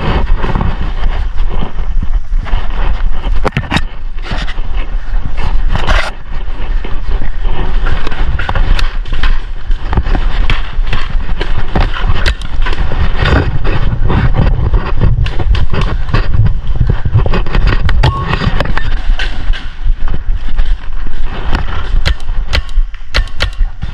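Close handling noise from a paintball player's body and gear rubbing against the camera: clothing rustling and scraping over a steady low rumble, with many sharp clicks and knocks at irregular intervals.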